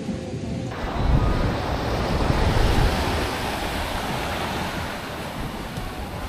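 Ocean surf breaking and washing up a sandy shore, a dense steady rush that starts suddenly under a second in, with wind rumbling on the microphone.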